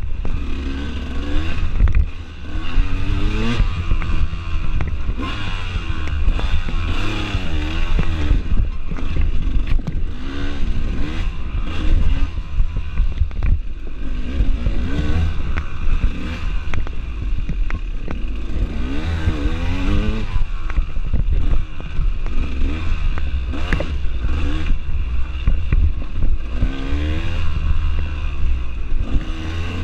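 Dirt bike engine revving up and down over and over as it is ridden hard off-road, pitch climbing and dropping with each burst of throttle and shift. Heavy wind rumble on the microphone, with knocks and rattles as the bike bounces over the trail.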